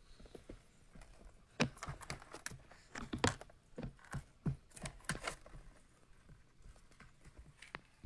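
A bearded dragon's claws clicking and scratching on artificial turf and the plastic wall of its enclosure as it walks and climbs: a run of irregular light taps from about a second and a half in until about five and a half seconds in, with a few more near the end.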